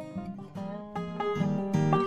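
Background music: a plucked acoustic guitar tune, growing louder toward the end.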